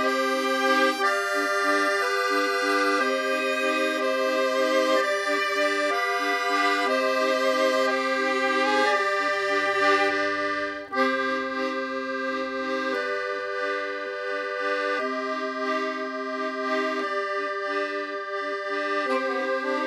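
Background music: accordion playing a musette-style tune over sustained chords and a regular bass pattern, with a brief break in the sound about halfway through.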